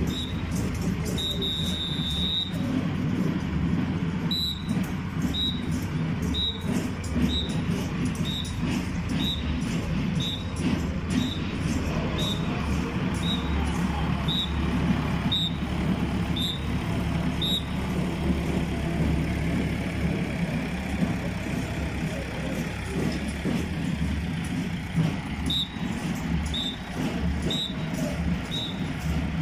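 Farm tractor's diesel engine running steadily as it rolls slowly past pulling a float. A short high beep repeats about once a second over it, stopping about halfway through and returning near the end.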